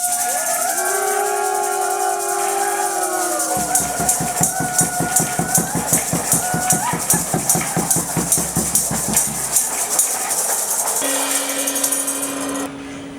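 Music: long held and gliding notes over a steady high rattle, with a pulsing beat joining about four seconds in and stopping near ten seconds; a single low note holds near the end.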